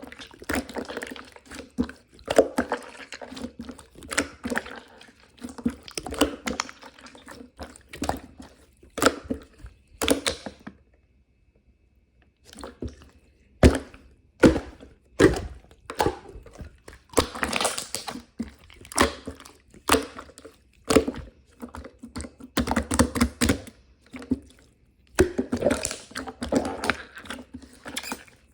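Irregular thunks, knocks and clicks of hands handling and working with aloe, with a pause of about two seconds partway through.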